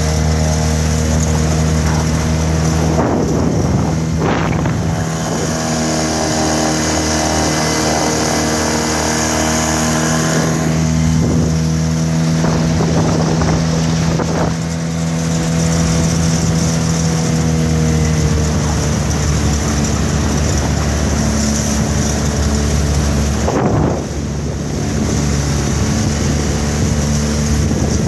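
Yamaha Malta 3 hp outboard motor running steadily under way, holding an even speed, with wind noise on the microphone.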